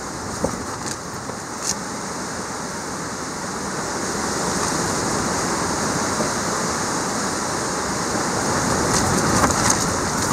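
Storm wind and heavy rain: a steady, dense rushing that grows louder about midway, with a few sharp taps near the start and several more near the end.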